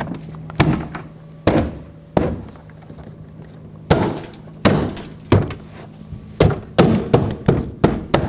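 BMW X5 front door trim panel being pushed onto the door, its push-pin clips seating with a series of dull thunks: spaced out at first, coming quicker near the end.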